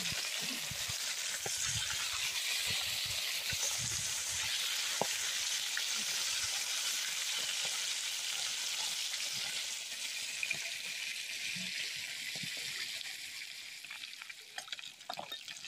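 Fish pieces deep-frying in hot oil in an aluminium kadai, a steady sizzle that dies down near the end. A few light knocks follow the sizzle.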